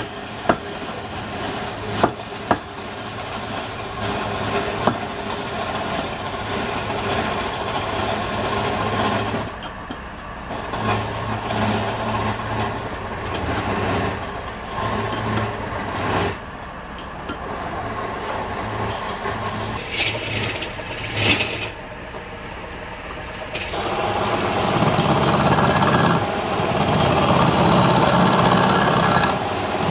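Wood lathe running, with a few sharp knocks in the first five seconds as the blank and tool rest are set. From about 24 seconds in, a gouge cuts the spinning wooden blank, adding a louder, rasping cutting noise over the lathe's steady hum.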